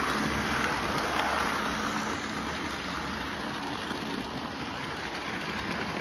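Model train running past close by: the whir of the model locomotives' motors and the rattle of wheels on the track, loudest in the first two seconds as the class 66 locomotive passes, then easing as the coaches roll by.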